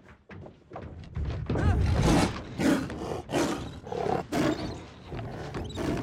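Bengal tiger snarling and roaring in a string of loud growls, building from about a second in and loudest near two seconds, then coming as a series of shorter snarls.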